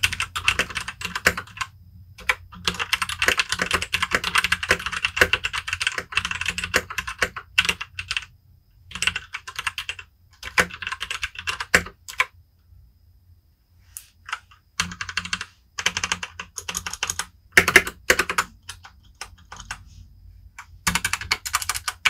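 Typing on a Royal Kludge RK Sink87g tenkeyless mechanical keyboard with RK brown tactile switches: quick runs of key clicks. There is a pause of about two seconds about halfway through.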